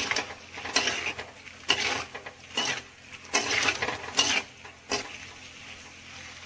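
A slotted metal spatula scraping and clattering against a steel wok while stirring frying pork with onion and ginger, in a run of irregular strokes that thin out near the end.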